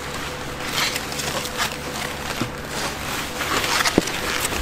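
Rustling of white protective packaging wrap as black plastic quad body panels are pulled out of it and handled, in irregular swishes, with a sharp knock near the end.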